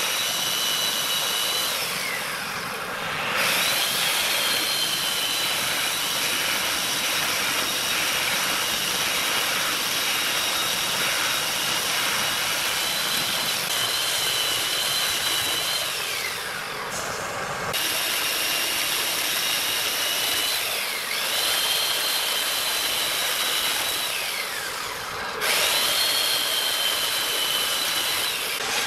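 Chainsaw cutting into a large wooden workpiece spinning on a lathe: a loud, steady high whine that sags in pitch several times as the chain bites into the wood. The sound breaks off and starts again abruptly a few times.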